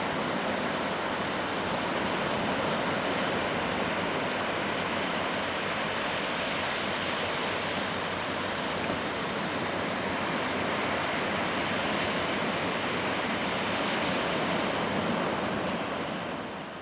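Sea waves washing onto a beach: a continuous rushing surf that swells and ebbs gently, fading out near the end.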